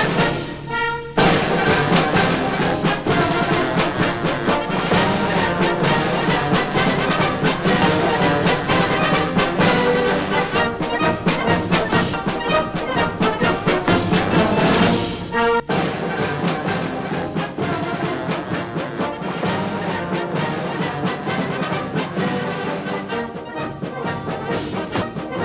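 Orchestral music led by brass, with a short dip about a second in and a change of section around fifteen seconds.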